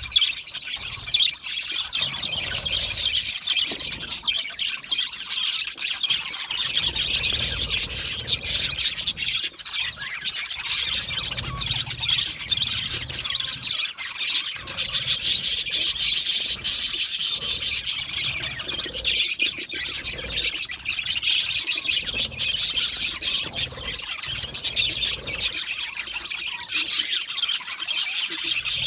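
A flock of budgerigars chattering continuously, many overlapping chirps, warbles and squawks, busiest about halfway through.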